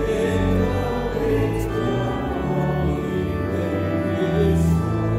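A congregation singing a hymn with pipe organ accompaniment, the organ holding long steady chords under the voices.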